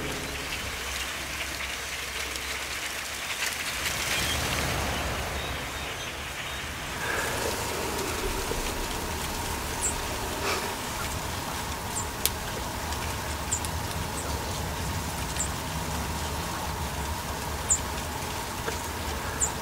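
A huge flock of small dark birds, a dense rain-like hiss of chattering and wingbeats. About seven seconds in it thins to a quieter steady outdoor hiss with a few short high chirps.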